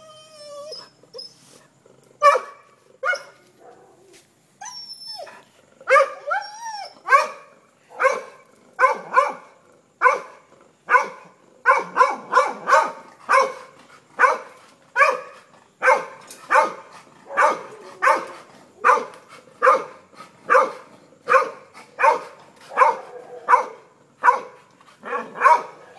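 A dog barking repeatedly at a steady pace of about one bark a second, with only scattered barks in the first few seconds; a brief high whine near the start.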